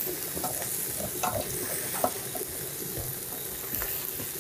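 Wild rice sizzling as it is sautéed with onions in a pan, being stirred, with scattered scrapes and taps of the utensil against the pan. The rice is at the toasting stage, nearly translucent, before hot water is added.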